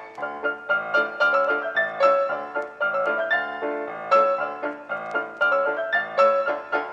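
Background piano music: a light melody of quick, evenly struck notes.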